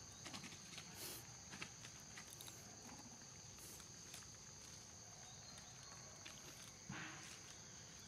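Near silence: a faint, steady high insect drone, with light scattered clicks and rustles of monkeys picking food off a stone slab, and a brief, slightly louder rustle near the end.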